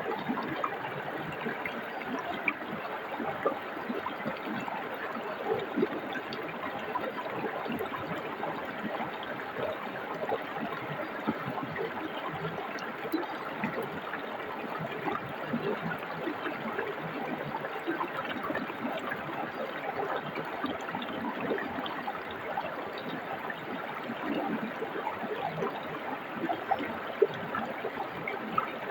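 Forest stream flowing: a steady rush of water with many small, irregular splashes and gurgles.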